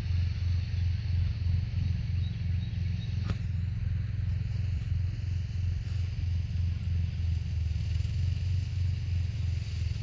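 An engine running steadily, a low drone with a regular pulse, with one faint click about three seconds in.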